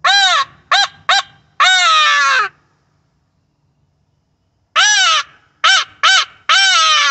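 Mouth-blown crow call sounding caws: a long caw, two short ones and a long caw falling in pitch, then the same series again about two seconds later.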